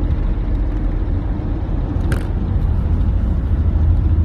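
A car driving, with a steady low road and engine rumble and a single brief click about two seconds in.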